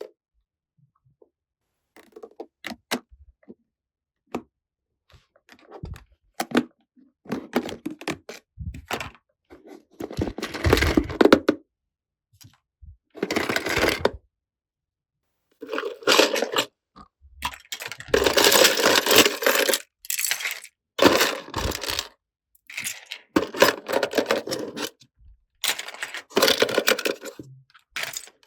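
A gift box being opened and small plastic toy pieces handled, heard as repeated bursts of scraping and rustling with small clicks and knocks between them.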